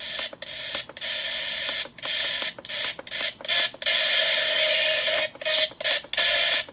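Static hiss from a Lalaloopsy toy alarm clock radio's speaker, mistuned on FM, cutting in and out unevenly with regular clicks about three a second running through it.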